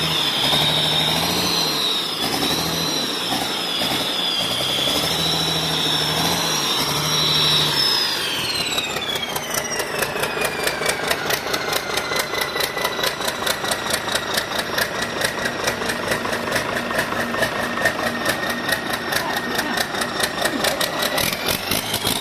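Cummins 6BT inline-six turbo diesel running with a high turbo whine at raised revs, then dropping back. The whine falls away over a few seconds and the engine settles into a steady idle with a regular beat. The whine starts to climb again near the end. This engine's turbocharger is leaking.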